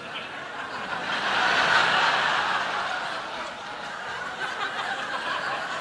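Theatre audience laughing, swelling about a second in and then slowly dying away.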